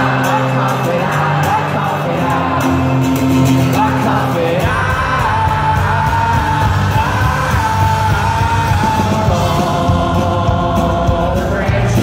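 Live indie rock band heard from the audience: acoustic guitar, electric guitars and singing, with yelling. About four and a half seconds in the band comes in fuller with deep bass added.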